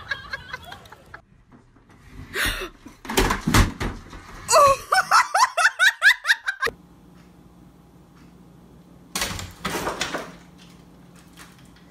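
A few knocks, then a quick run of short laughing bursts lasting about two seconds.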